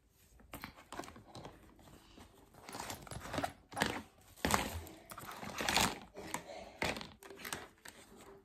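Hard plastic parts of a corner shoe rack being handled and fitted together: irregular clicks, knocks and rattles of plastic on plastic, loudest in the middle.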